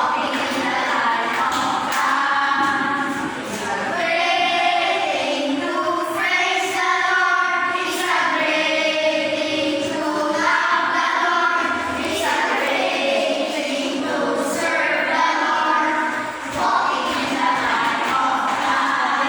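Loud amplified videoke singing: a voice holding and bending long notes through a karaoke machine's speakers, with music underneath, in phrases with a short break twice.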